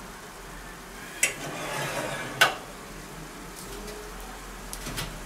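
Metal baking tray pulled out of a hot oven: two sharp metallic knocks about a second apart, with a faint sizzle from the roast pork and its juices on the tray. Light fork clicks on the tray near the end.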